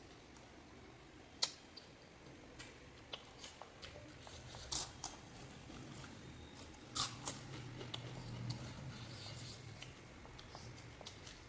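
Eating panipuri: scattered sharp crunches and crackles as crisp puri shells are bitten and chewed, with a few louder cracks.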